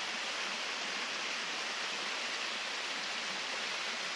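Mountain stream water pouring over a small cascade close by, a steady rushing hiss with no change throughout.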